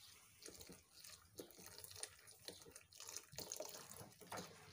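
Faint liquid sounds of custard paste poured in a thin stream into boiling milk while a wooden spoon stirs in the metal pot, with small irregular splashes and ticks.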